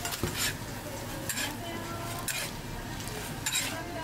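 Hotteok sizzling as they fry in oil on a griddle. Short metal scrapes on the griddle come about once a second, four times in all.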